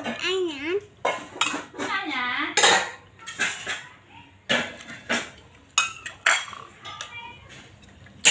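A metal fork clinking and scraping against a ceramic plate as a toddler eats, in sharp separate clinks every second or so. A voice croons with a wavering pitch twice in the first two and a half seconds.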